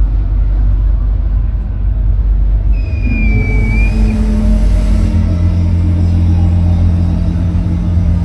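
Electronic music intro over a large arena sound system, heard through a phone microphone: a deep, steady bass drone under held synth tones. About three seconds in, a high hiss swells up and a short high tone slides down. The bass grows heavier about five seconds in.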